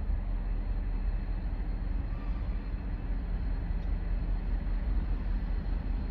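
Low, steady rumble of a diesel freight locomotive approaching in the distance.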